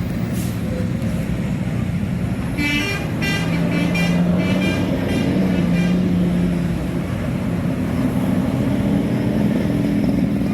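Bus basuri telolet musical horn sounding a quick string of short high notes for about three seconds, starting near the three-second mark, over steady bus engine and traffic noise.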